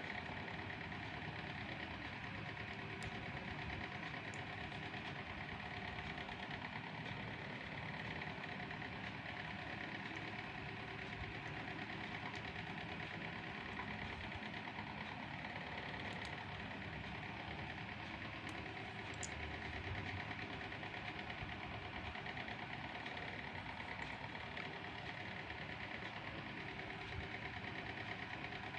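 Steady mechanical hum of a running machine, even and unchanging, with a few faint ticks.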